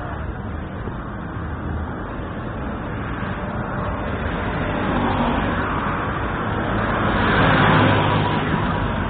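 Road traffic noise, with a motor vehicle growing louder and loudest near the end.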